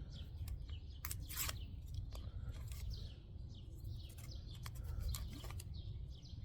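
Small birds chirping now and then: short, high, falling notes over a steady low rumble of outdoor background noise.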